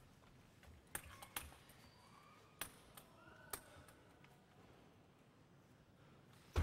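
A table tennis ball bouncing on the table as a player readies to serve: four sharp, unevenly spaced clicks in the first few seconds, over faint hall ambience.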